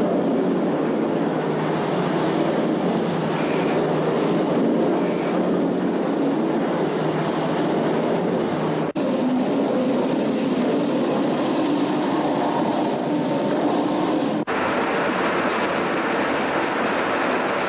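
Opicina tram in motion: a steady rumble of its wheels and running gear on the rails. The sound cuts out for an instant twice, about nine and about fourteen and a half seconds in.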